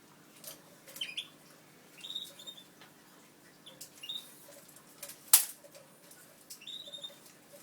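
Newly hatched canary chicks cheeping in short, high clusters, four times. A single sharp click about five seconds in is the loudest sound.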